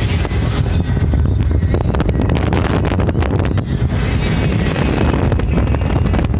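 Mercury outboard with a new power head running steadily at speed during its break-in run, as the boat moves fast through the water with spray coming off the hull. Heavy wind buffets the microphone over a steady low engine rumble.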